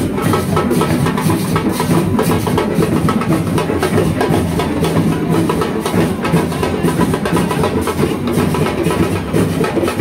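Loud, continuous music with drums and percussion, played for dancers in a street parade.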